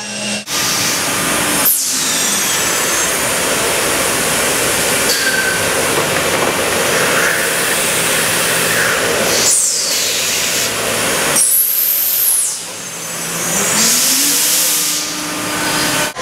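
CNC router spindles running and cutting sheet material, a dense mechanical noise with high whines that glide down and up as the spindles change speed. The sound changes abruptly a few times.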